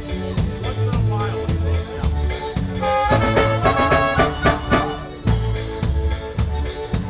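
Live polka band playing a polka: bass and drums keep a steady oom-pah beat under accordion and horns. About three seconds in, the clarinet and trumpet play a quick run of bright notes lasting about two seconds.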